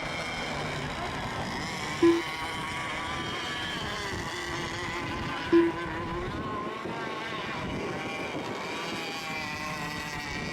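Several radio-controlled racing boat engines running at once as the boats circle before the start, their high pitches wavering up and down. Two short, louder tones cut in about two and five and a half seconds in.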